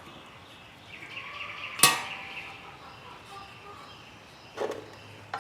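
Metal engine parts and tools being handled during a valve clean-up. A brief squeaky scrape is followed by a sharp metallic clack about two seconds in, and two softer knocks come near the end.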